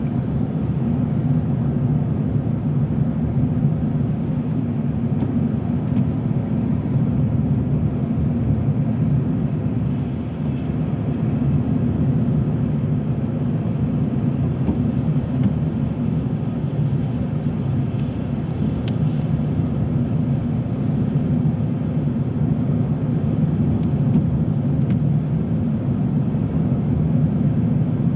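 A car driving: steady engine and tyre noise heard from inside the moving car.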